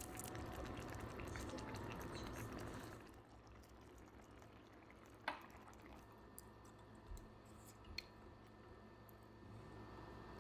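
A pot of army stew bubbling on the stove for the first few seconds, then quiet table sounds: a few sharp clicks of chopsticks and a spoon against a ceramic rice bowl, with soft chewing.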